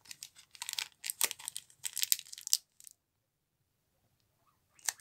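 Foil wrapper of a sealed Yu-Gi-Oh! booster pack crinkling in quick bursts as it is handled and turned over in the hands, for about three seconds. A pause follows, then one more short crinkle near the end.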